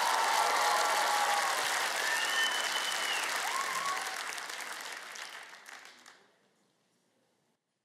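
Studio audience applauding, fading out about six seconds in and then dying away to near silence.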